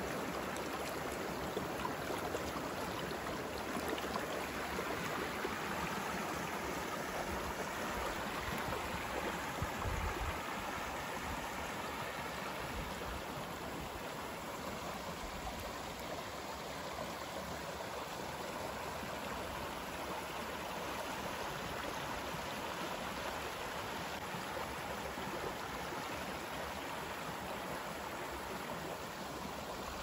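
A shallow, rocky stream rushing and babbling steadily, with a few low bumps about ten seconds in.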